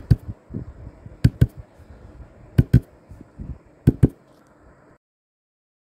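Intro sound effect of paired knocks: four quick double thuds, just over a second apart. The sound cuts off to silence about five seconds in.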